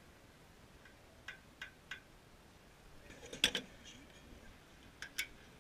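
Gas pump nozzle being handled and hung back on the pump: a few light clicks, then a louder clatter about three and a half seconds in as the nozzle is seated in its holster, and two more sharp clicks near the end.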